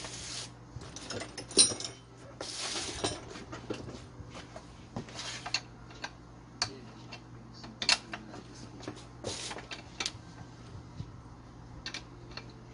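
Metal hand tools working the muffler nuts of a gas brush cutter: a T-handle socket wrench turning and tapping, with about a dozen sharp metal clicks and a few short rasping scrapes as the nuts are loosened.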